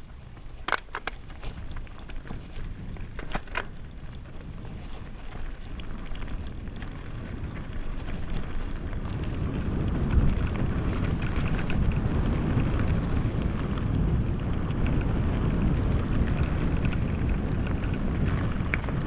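Mountain bike riding along a dirt track, with a rushing of wind and tyre noise that grows steadily louder about halfway through as the bike picks up speed. A few sharp clicks and rattles come in the first few seconds.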